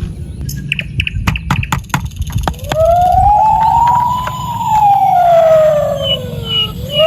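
A siren wail: one tone that rises slowly to a peak past the middle and then falls again, after a quick series of sharp clicks.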